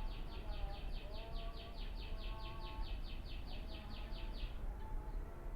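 Birds calling: a fast, even series of high chirps, about five a second, that stops near the end, over short lower whistled notes. A steady low rumble lies underneath.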